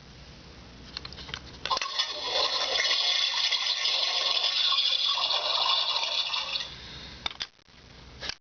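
Barbie toy toilet's electronic flushing sound effect played through its small built-in speaker: a click or two, then a rushing flush noise lasting about five seconds that fades out, followed by another click.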